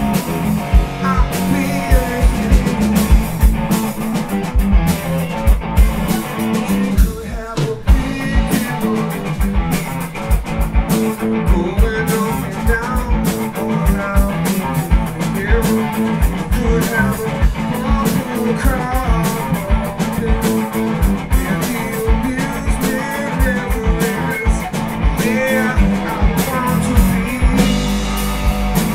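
Live rock band playing loud: electric guitars over a drum kit keeping a steady beat, with a brief break about seven seconds in.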